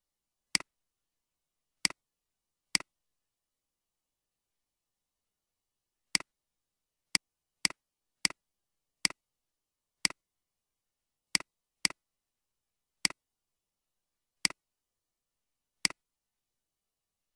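Sharp, isolated clicks from computer use, mouse buttons and keys, about fourteen at an uneven pace with dead silence between them: three in the first few seconds, then a pause, then a quicker run.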